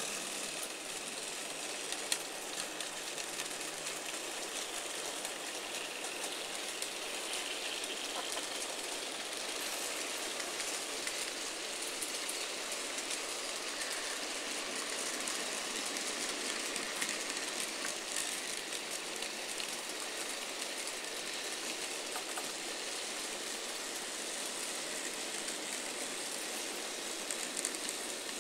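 N gauge model trains running on the track: a steady whir and rattle of small wheels and motors, with a single click about two seconds in.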